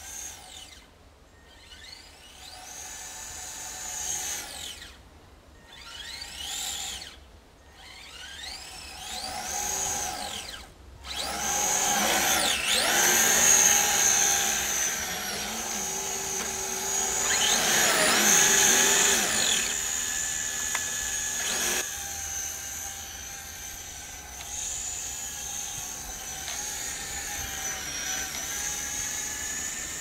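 Kyosho Blizzard EP radio-controlled snowcat's electric motor and gear drive whining as it runs through snow, the pitch rising and falling with the throttle. For the first third it comes in short bursts with pauses, then runs almost without a break, loudest in the middle.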